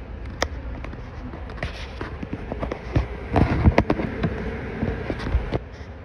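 Irregular clicks, knocks and rubbing from an action camera being handled and repositioned, thickest about three to four seconds in, over a low steady rumble.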